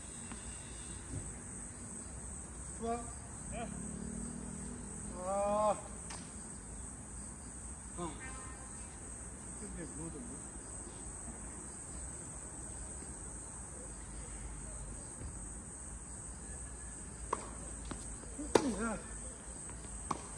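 Insects keep up a steady high-pitched drone. A few sharp knocks come at intervals, and brief distant calls are heard, the loudest about five and a half seconds in.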